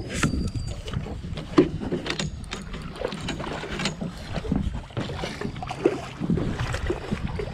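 Irregular knocks and clatter of gear, including a landing net, being handled against a fiberglass boat hull, over wind rumbling on the microphone.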